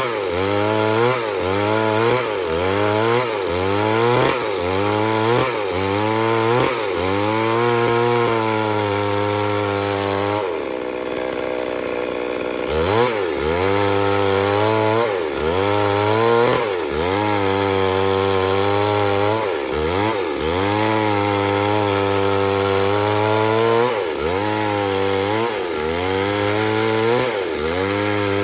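Chainsaw cutting wood in repeated short strokes, its engine note dipping under load and recovering about once a second. About ten seconds in, it runs steadily for a couple of seconds before the strokes resume.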